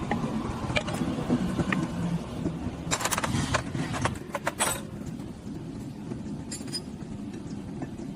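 Motorcycle engine running with a steady low hum, and light metallic clinks and rattles between about three and five seconds in.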